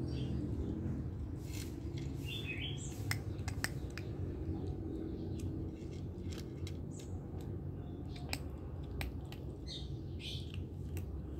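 Kitten chewing dry kibble: sharp, irregular crunches and clicks, over a steady low background rumble, with a couple of short high chirps, once early and once near the end.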